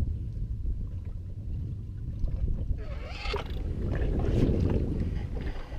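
Steady low rumble of wind and water around a small open fishing boat at sea, with a swell of hiss from about three to five seconds in.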